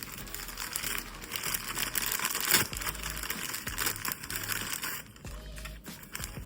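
Plastic packaging crinkling and rustling as pistol accessories are handled and unwrapped, with a louder crackle about two and a half seconds in.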